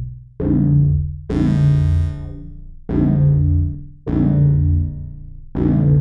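Cherry Audio PS-3300, a software emulation of Korg's 1977 PS-3300 polyphonic analog synthesizer, playing a bass preset: five separate low notes, each starting sharply and fading away, the second one brighter with a hissy top.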